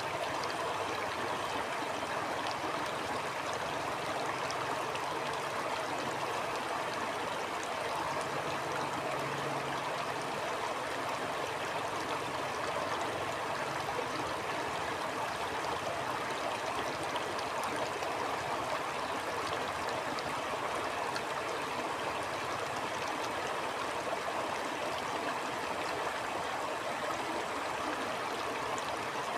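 Stream water flowing and burbling steadily, an even rushing wash without breaks.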